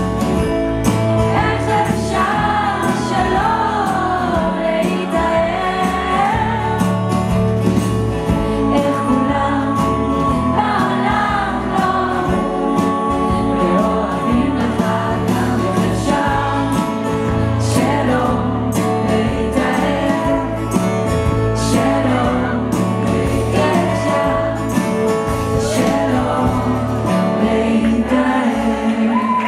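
Live folk band playing a song: a woman singing over acoustic guitar, double bass and drums.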